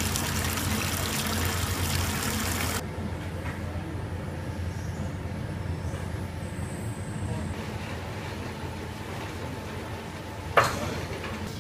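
Freshly crushed grape juice pouring in a stream onto foaming juice, a steady splashing rush over a low hum, which cuts off abruptly about three seconds in. After that only the low hum remains, broken near the end by a single sharp knock.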